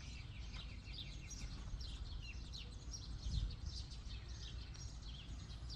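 Many small birds chirping busily, in quick short falling notes, over a steady low rumble.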